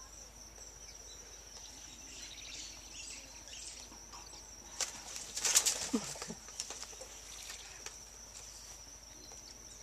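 Hornbills flapping and pecking at their own reflection in a mirror: a short flurry of wingbeats and sharp beak taps about five seconds in, the typical attack on a mirrored rival. A steady high insect trill runs underneath.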